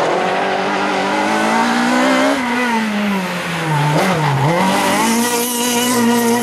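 Renault Clio rally car's engine at full race pace: the revs climb, fall away through a corner with a sharp dip about four seconds in, then rise quickly and hold high as the car accelerates away.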